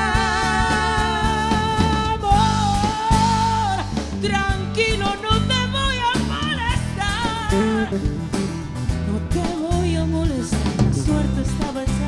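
Live pop ballad played by a small band: a woman sings wordless ad-libs with held, wavering notes and quick vocal runs over acoustic guitar, electric guitar and drum kit.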